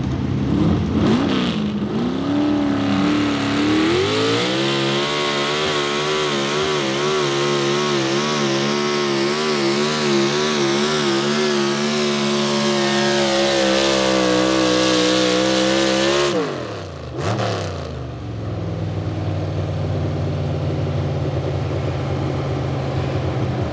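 Pro Stock 4x4 pickup's big-block V8, fed by a single four-barrel carburetor, revving up as the truck launches on the sled pull, then holding at high rpm for about twelve seconds with its pitch wobbling up and down under load. About sixteen seconds in the revs drop away sharply and the engine settles to an idle.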